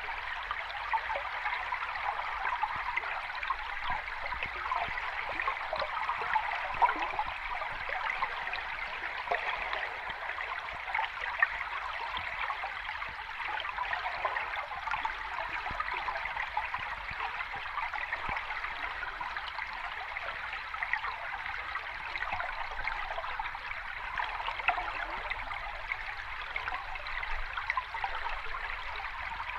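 Running water of a small stream or cascade, a steady trickling and splashing flow with now and then a slightly louder splash.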